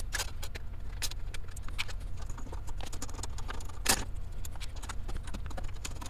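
Scattered light clicks and metallic clinks of hand tools and case parts being handled while the computer is opened, with one sharper knock about four seconds in, over a low steady hum.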